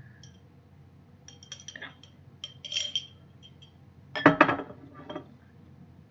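Eating utensils clinking and scraping against tableware: a run of light clinks with a brief ring, the loudest cluster about four seconds in.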